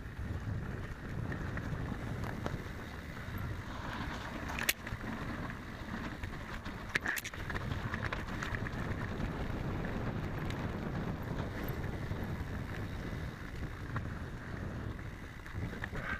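Mountain bike riding down a dirt trail: steady wind rush on the microphone over the rumble and rattle of the tyres and frame on the rough ground, with two sharp knocks, about four and a half and seven seconds in.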